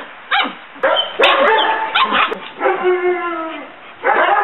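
Five-week-old German Shepherd puppies yipping and barking in a string of short, high calls, with one longer drawn-out whine a little past halfway.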